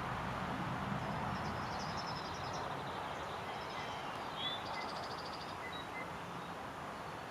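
A small songbird singing rapid high trills, one about a second in and another around four and a half seconds, over a steady background hiss of outdoor noise.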